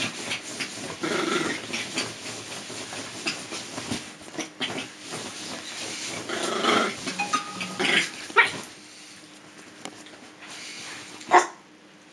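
A small dog growling and scuffling on a bedspread in rough play with a person's hands. The noise dies down after about eight and a half seconds, and a single sharp knock comes near the end.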